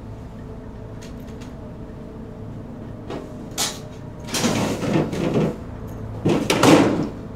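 A low steady hum, then a short knock about three and a half seconds in, followed by two longer scraping, sliding handling noises, the loudest near the end.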